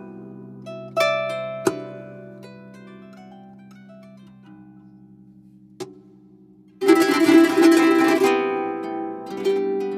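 Harp playing a flamenco soleá. A few plucked notes and chords ring out and fade, there is a single sharp tap just before six seconds in, and then a loud, fast strummed flurry comes near seven seconds and rings on.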